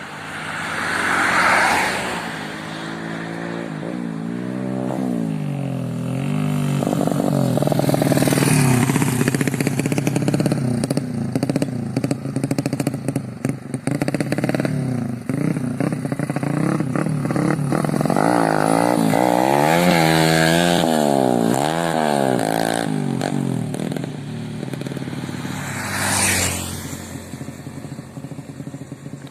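Yamaha Vega ZR four-stroke single, bored out to a 130 cc build with a custom camshaft, revving up and down over and over. Louder rushing swells come about a second in and again near the end.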